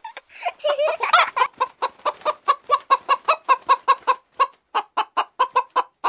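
Domestic hen clucking in a fast, even run of about five clucks a second, after a longer, more varied call in the first second or so.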